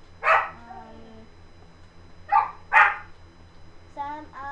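A pet dog barking three times: a single bark near the start, then two barks in quick succession about two and a half seconds in.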